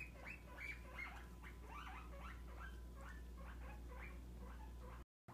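Guinea pig squeaking in a quick series of short calls, about three a second, fading toward the end.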